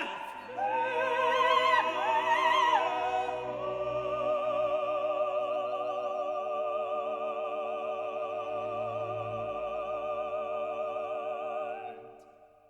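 Background music: operatic singing, the voice wavering in vibrato, ending on one long held note that fades out near the end.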